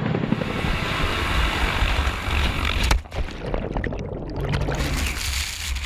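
CH-47 Chinook tandem-rotor helicopter hovering low over water: a steady rush of downwash spray over a deep rumble. About three seconds in it cuts off sharply and turns to a muffled underwater rumbling.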